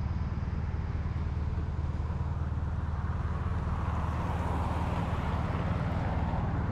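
A vehicle engine idling steadily with a low rumble. A rushing hiss swells and then fades between about four and six seconds in.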